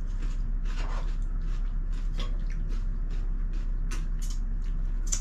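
Scattered light clicks and taps from eating at a table, such as bowls and chopsticks, over a steady low hum.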